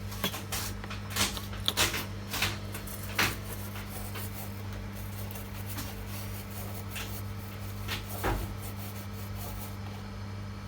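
Steady low electrical hum with scattered sharp clicks and light knocks from objects being handled on a work bench, most of them bunched in the first three seconds and a few more later on.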